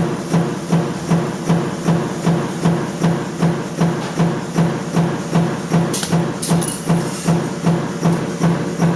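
Stamping press running a die continuously, knocking at about three strokes a second with a hum on each stroke. A short hiss about six seconds in, like an air blow-off.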